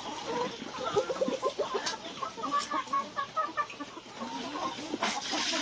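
A flock of chickens clucking while being fed: many short, rapid, overlapping clucks.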